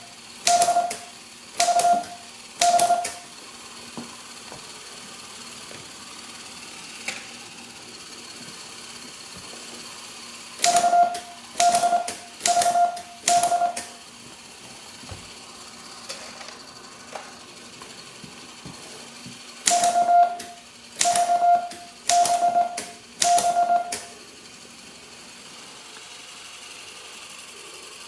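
1908 Yetman Morse code transmitting typewriter being typed on in three groups of about four keystrokes. Each keystroke gives a sharp clack and a short burst of mid-pitched Morse beeps, as the clockwork-driven code roller sends that one character through its contacts.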